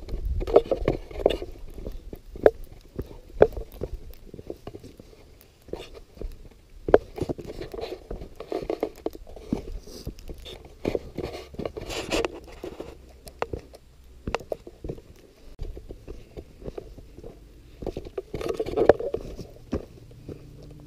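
Footsteps crunching and scuffing on gritty sandstone, an irregular run of steps with sharp clicks from grit under the shoes.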